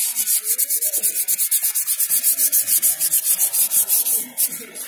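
Paper pad with Autosol metal polish rubbed hard over a motorcycle engine's aluminium crankcase cover: a dry scrubbing in quick, even back-and-forth strokes, several a second, as the dull metal is polished to a shine.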